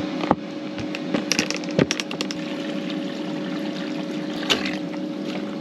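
Water pouring and trickling while dishes are rinsed, with a few light clinks and clatters, over a steady low hum.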